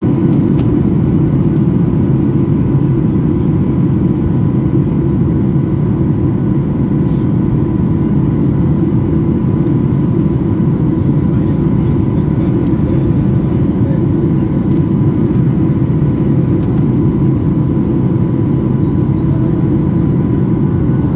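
Steady cabin noise of a Boeing 737 MAX 8 in flight: the deep rush of its CFM LEAP-1B engines and the airflow, with a faint steady whine on top.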